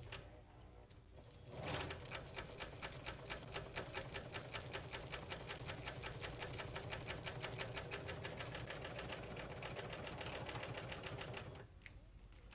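Husqvarna Huskylock 936 serger sewing a wide two-thread overlock (blanket stitch) through fabric and stabilizer: a rapid, even mechanical clatter that starts about a second and a half in and stops near the end.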